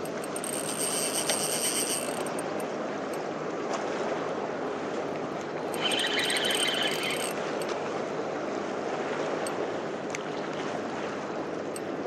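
Spinning-reel drag buzzing as a hooked fish pulls line off against a hard-bent float rod, in two spells: about two seconds at the start and again for a second and a half about six seconds in. A steady hiss runs underneath.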